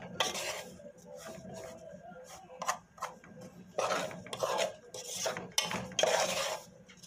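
A metal spoon stirring and scraping dry flour around a large aluminium pot in irregular rasping strokes, as the flour is toasted for farofa.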